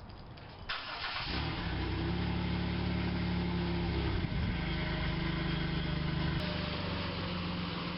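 A car engine starting up about a second in, then running steadily.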